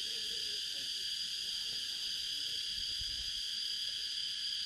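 Steady, high-pitched insect chorus, an unbroken shrill chirring.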